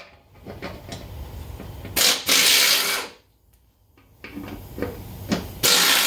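Impact wrench hammering in two loud bursts of about a second each, about two seconds in and again near the end, as it backs out the bolts holding a mower deck spindle. Fainter clicks and knocks of the tool and bolts fill the gaps between.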